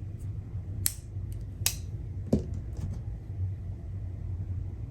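A few sharp clicks and light ticks as a small folding knife is handled in the hand, over a steady low hum.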